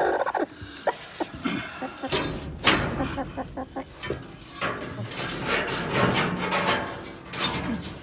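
A stuck hen calling in distress while she is being worked free, with rustling and sharp knocks from the handling among the straw and metal pipes.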